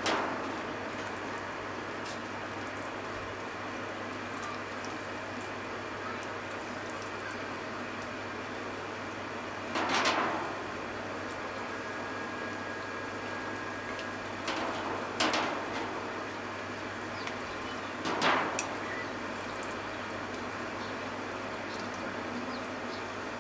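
Hot water bubbling steadily in a small pot of deep-fried tofu pouches (aburaage) having their oil drawn out. Three times, about ten, fifteen and eighteen seconds in, chopsticks push the pouches about and the water sloshes briefly and more loudly.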